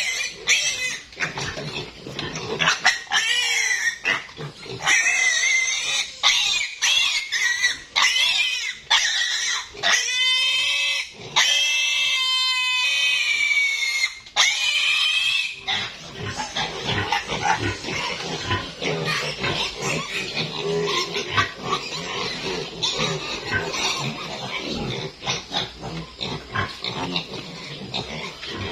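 Piglets squealing loudly and shrilly while being restrained and injected with ivermectin dewormer, in repeated piercing cries. About sixteen seconds in, the long squeals give way to a busier, lower jumble of squeals and grunts from several piglets in the pen.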